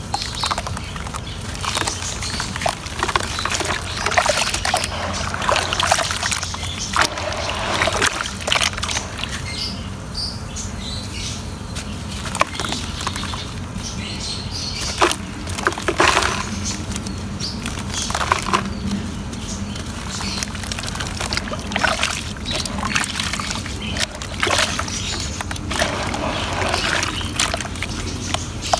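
Large chunks of pure cement crumbling and breaking apart in water, with irregular splashing and sloshing and sharp crackles as pieces break off. A steady low hum runs underneath.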